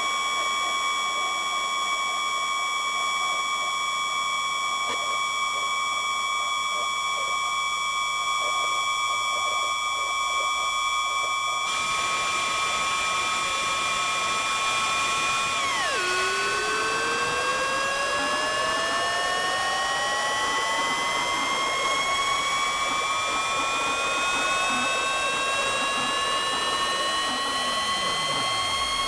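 Eurorack modular synthesizer with the Flight of Harmony Infernal Noise Machine as its sound source, holding several steady high electronic tones over a hiss. About twelve seconds in the hiss thickens, and a few seconds later one tone drops sharply and then glides slowly upward, while fainter low tones sweep downward.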